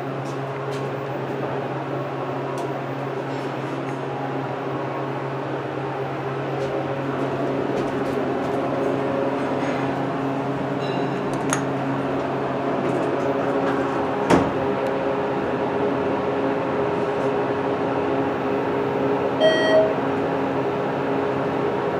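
ThyssenKrupp hydraulic elevator's pump motor humming steadily as the car travels up, with a single click about two-thirds of the way in. Near the end come two quick chime tones, the car's arrival signal at the floor.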